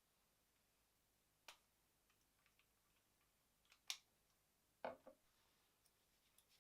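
A few separate sharp clicks and light knocks. The loudest click comes about four seconds in, followed closely by a duller knock, with fainter ticks between them.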